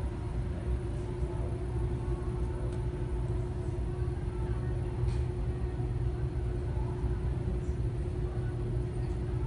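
Ford Mustang Dark Horse's 5.0-litre Coyote V8 idling steadily, a low, even rumble.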